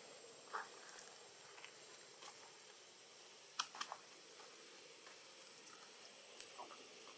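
Faint steady hiss with a few scattered short clicks and ticks, the loudest a quick cluster of three about three and a half seconds in.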